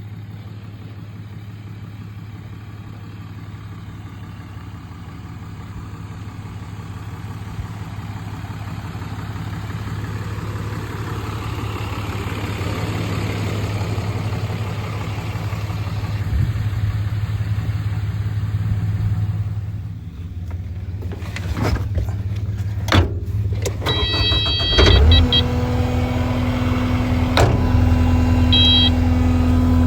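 A vehicle engine running steadily and slowly getting louder. About two-thirds of the way through come a few sharp clunks and short high beeps, then the engine settles into a steadier, higher note.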